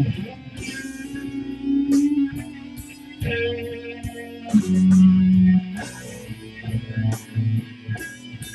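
Guitar playing a blues: picked notes and short phrases, with a few notes held and left ringing, the loudest about halfway through.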